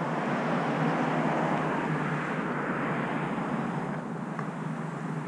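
Distant traffic noise: a steady rush that swells over the first few seconds and eases off about four seconds in.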